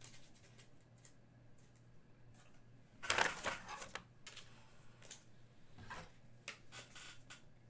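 Faint handling noises of trading cards and hard plastic card holders: a brief rustling scrape about three seconds in, then a scatter of light clicks and ticks.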